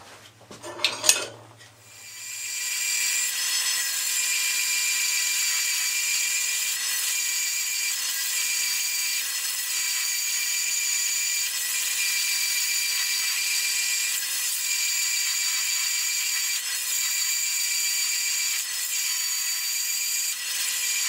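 Clarke CBS45MD metal-cutting band saw cutting through a steel knife blank: a steady, high hissing whine with faint steady tones beneath. A sharp knock comes about a second in, and the cutting sound builds up over the following second.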